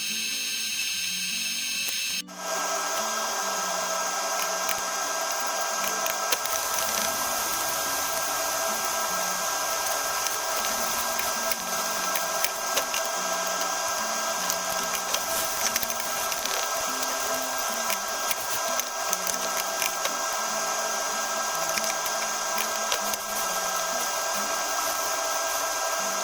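Steady whirring of a small electric motor, briefly cut off about two seconds in, then running on.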